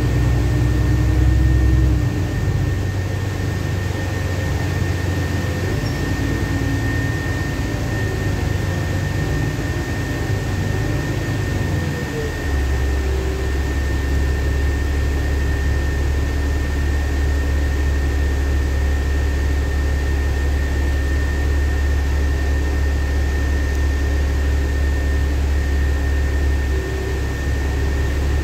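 LiAZ-5292.65 city bus heard from inside the passenger cabin: engine and running noise with a thin steady high whine. About twelve seconds in, the engine sound changes to a steady low drone as the bus slows to a red light.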